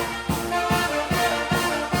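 Charanga brass band (trumpets and trombones) playing an electronic dance tune arranged for brass, over a steady bass-drum beat a little over twice a second.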